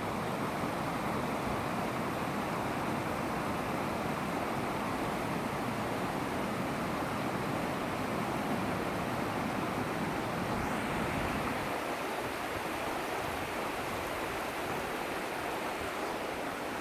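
Running water rushing steadily, a continuous even wash; its deep low part drops away about twelve seconds in.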